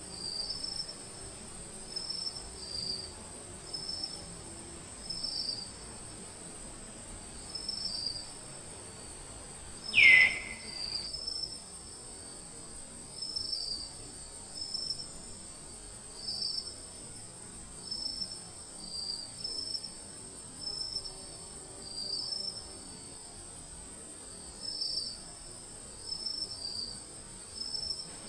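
Insects droning with a steady, very high buzz, over short high chirps that repeat in pairs about every second and a half. About ten seconds in, a single loud call sweeps down in pitch.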